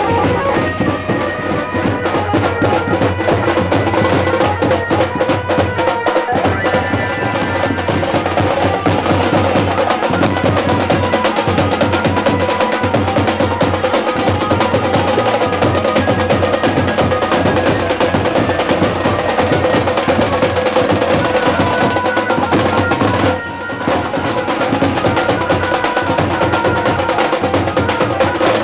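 Dance music with loud, dense drumming and percussion under a steady, held melody line.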